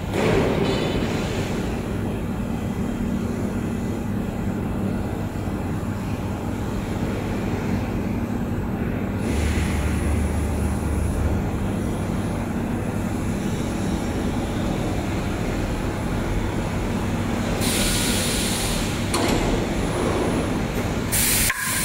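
HSG TX12036S-9 12 kW heavy-duty tube laser cutting machine running: a steady mechanical hum, with a low rumble for a couple of seconds about halfway through and short bursts of hissing twice near the end.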